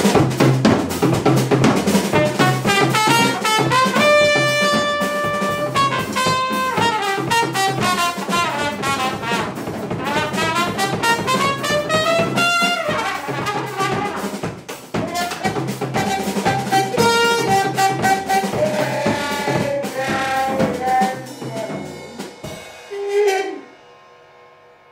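A trumpet and a drum kit playing jazz together: the drums beat steadily under the trumpet's held notes and runs that slide down and back up. The music thins out and stops near the end.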